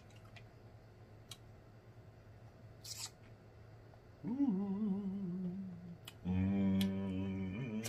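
A man humming "mmm" twice with his mouth closed while eating king crab: a first hum that wavers in pitch about halfway through, then a longer, steadier one near the end. Before them come a few faint clicks and a brief crackle of crab shell being handled.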